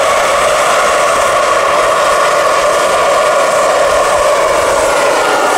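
RC scale Bell 429 helicopter powered by a real model turbine engine, hovering low: a steady turbine whine mixed with the rotor blades' rush. Near the end the pitch dips slightly as the helicopter moves off.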